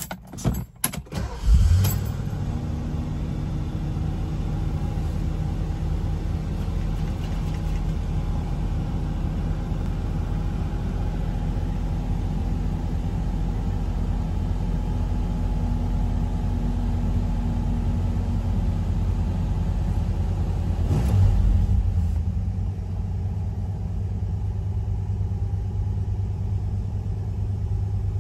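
1985 Ford Mustang's 5.0-litre V8 cold-started: a second or so of cranking, then it catches and settles into a steady fast idle near 2,000 rpm. About 21 seconds in the sound swells briefly, and the engine then runs on a little quieter.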